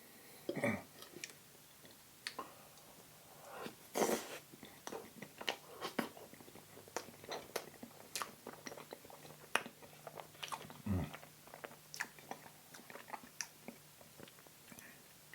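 Close-up chewing and mouth sounds of someone eating soft cheesecake with whipped cream: irregular soft, wet clicks and smacks, with a few louder ones about four and eleven seconds in.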